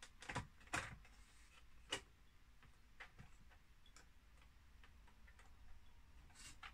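Small plastic clicks and taps as a plastic switch linkage is pushed and fiddled into place on a Philips D8254 radio cassette player's circuit board. A few sharp clicks come in the first two seconds, then fainter ones about once a second.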